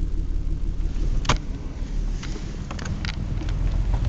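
Car running, a steady low rumble, with a sharp click about a second in and a few lighter clicks a second or two later.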